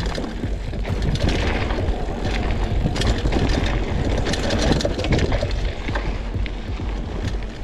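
Mountain bike rolling down a dirt trail: tyres on loose ground and the bike rattling over bumps, with heavy wind rumble on the camera microphone.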